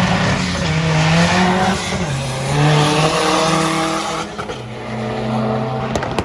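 Car engine running at high revs, its pitch stepping down and up several times, over a loud hiss.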